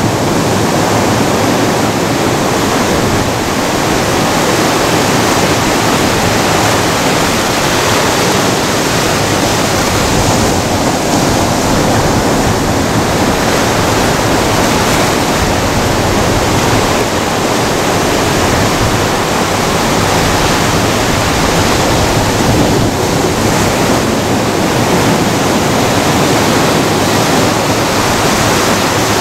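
Ocean surf breaking and washing in over sand and rocks, a loud, steady rush of water with no let-up.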